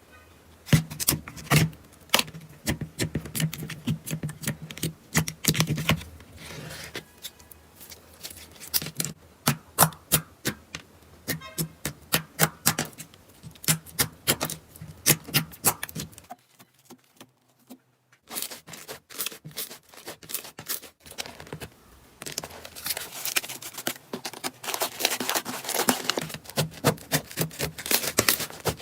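Slime being squished and poked by hands, giving many rapid sharp clicks and pops. It goes quieter for a couple of seconds past the middle, then the clicking picks up again.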